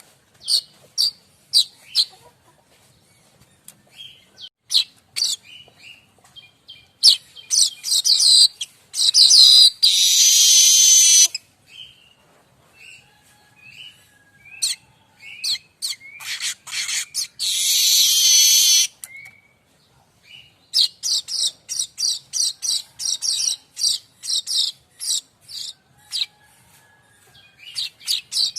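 Streaked weaver (manyar kembang) singing: runs of short, sharp chattering notes that build into a long harsh, wheezy buzz of about two seconds. This happens twice, and a third phrase begins about two-thirds of the way in.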